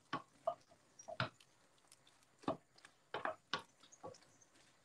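A spoon stirring thick pappa al pomodoro in a stainless steel pot, giving faint, irregular scrapes and taps against the pot about once or twice a second. The stirring keeps the bread-and-tomato mash from sticking to the bottom.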